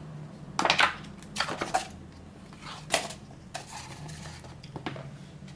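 A thick book being opened and its pages flipped by hand: several quick paper flaps and rustles, the loudest about half a second in, over a steady low hum.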